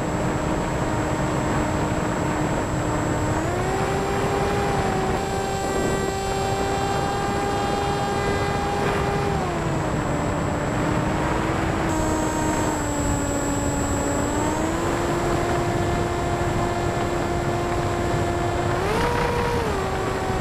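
Brushless electric motor and pusher propeller of a TBS Caipirinha flying wing, heard on board in flight over a steady rush of wind. The hum holds steady and steps up and down in pitch as the throttle changes, rising about three and a half seconds in, dropping near the middle and climbing briefly near the end, with a thin high steady whistle above it.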